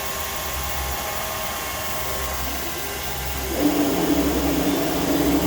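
Okamoto CNC internal grinder running with a steady machine hum. About three and a half seconds in, a louder steady hum with a single held tone sets in.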